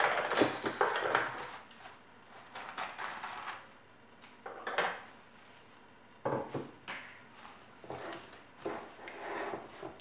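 Plastic cling film crinkling and rustling in short irregular bursts as it is smoothed and pressed down over the rim of a bowl.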